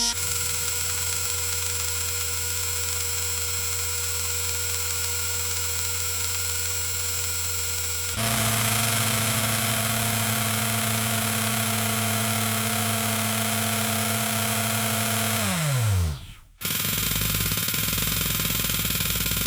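Grain auger motor running with a steady mechanical hum. About eight seconds in, its tone changes abruptly and it runs louder. Near the end it winds down with a falling pitch, cuts out for a moment and starts running again.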